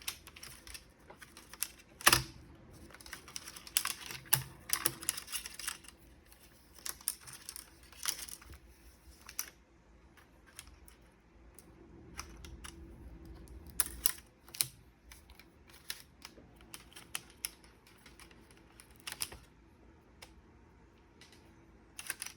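Irregular clicks, taps and small knocks of a Compaq V3000 laptop's plastic parts being handled and pried apart during disassembly, with the sharpest knock about two seconds in.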